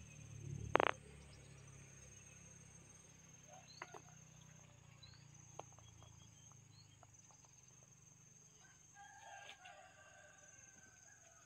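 A rooster crowing faintly near the end over a steady high buzz of insects, with a few small chirps and clicks. A brief sharp sound about a second in is the loudest thing.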